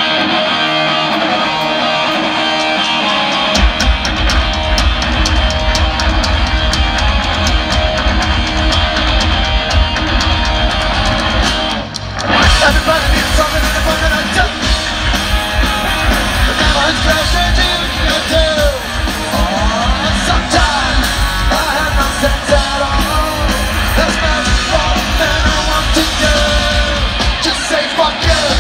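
Punk rock band playing live: electric guitar alone at first, then bass and drums come in about three and a half seconds in. After a brief break about twelve seconds in, the full band plays on under a shouted, sung vocal.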